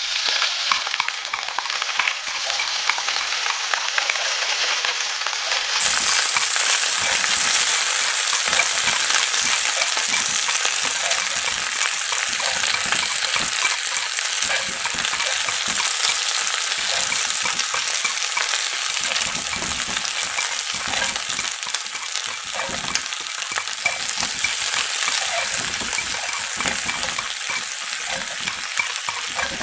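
Chicken pieces deep-frying in hot oil: a steady sizzle with dense crackling throughout.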